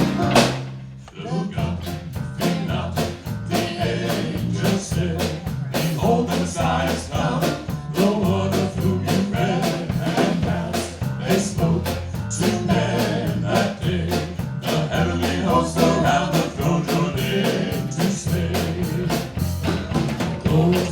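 Band music: a country-rock gospel song played on drum kit, bass and guitar with a singing voice, a steady beat throughout. The music drops out briefly about a second in, then comes back in.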